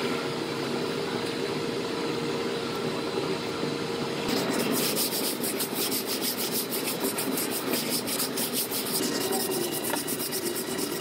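A plastic spreader scraping a thin coat of body filler across a truck's steel bedside panel. About four seconds in, this gives way to hand block sanding of the filler: quick, steady back-and-forth rasping strokes of sandpaper.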